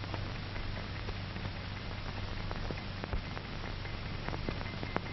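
Surface noise of an old optical film soundtrack: a steady hiss with scattered clicks and pops over a constant low hum.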